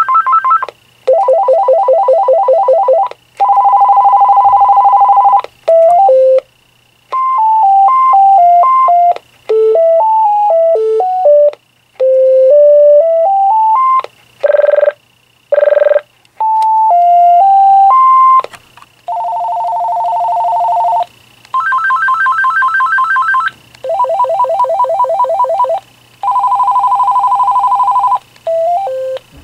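Electronic ringer tones of an AT&T CL83213 DECT 6.0 cordless phone previewed one after another: fast warbling trills, a steady two-note buzz and short stepping melodies, each cut off after a second or two as the next tone is selected.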